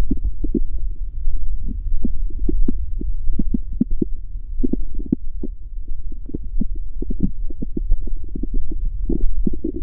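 Human stomach growling: a steady deep rumble with many quick, irregular gurgles on top, one after another without a break.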